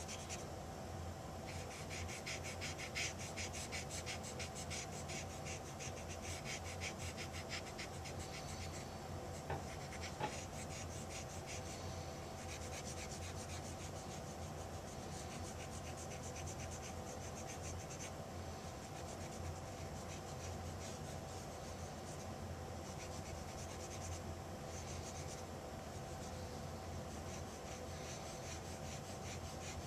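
Cotton-tipped applicator scrubbing oil paint onto a photographic print in quick, faint, scratchy back-and-forth strokes. The strokes are busiest in the first dozen seconds and lighter after that.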